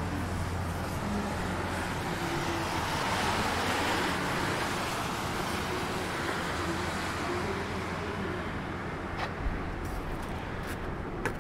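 Street traffic: a car passes, its tyre and engine noise swelling to a peak a few seconds in and then fading, over a steady low engine hum. A couple of short sharp clicks come near the end.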